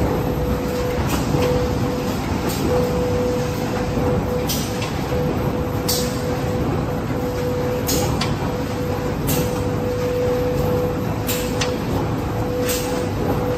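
Automatic flexo printer slotter die-cutter carton line running, its conveyors carrying printed corrugated boards to the stacker: a steady machine din with a constant hum tone. Short, sharp sounds recur every second or two over it.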